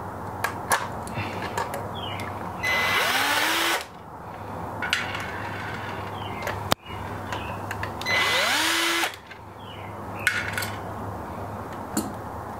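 Power screwdriver run twice, about a second each, its motor pitch rising as it spins up, backing out the gearbox screws of a conical burr coffee grinder. Small metal clicks of pliers and screws come between the runs.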